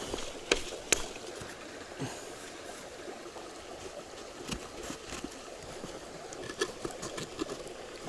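Steady rush of a forest stream, with a few short sharp clicks of sticks and birch bark being handled, the clearest about half a second and one second in.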